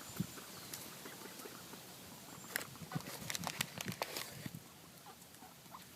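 A sandhill crane pecking at seed, its bill giving quick, irregular taps and clicks, busiest in the middle, with a few faint high chirps of small birds.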